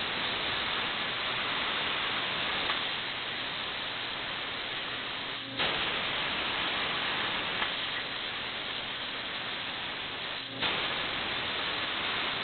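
Plasma cutting torch arc hissing steadily as it cuts a sprocket profile from steel sheet on a CNC plasma table. The hiss dips briefly and comes back sharply twice, about five seconds apart.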